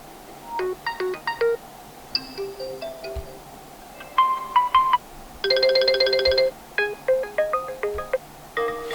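Ringtone melodies from a Realme 11 Pro+ smartphone: short phrases of clear electronic chime-like notes separated by brief pauses, with a rapidly repeated chord about five and a half seconds in.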